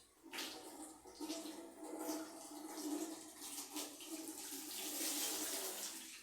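Water running from a tap and splashing, in uneven surges, loudest about five seconds in.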